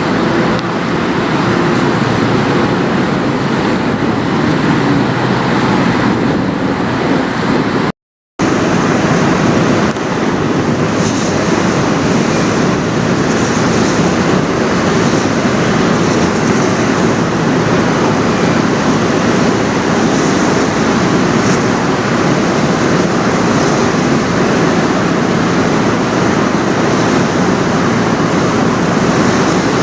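Steady, loud roadway traffic noise, broken by a half-second drop-out to silence about 8 seconds in.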